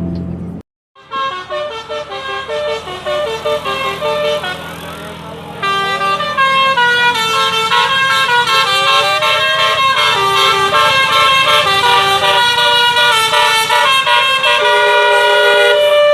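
Basuri telolet multi-tone bus horn playing a melody of short stepped notes. It starts after a brief silence near the start and gets louder about six seconds in.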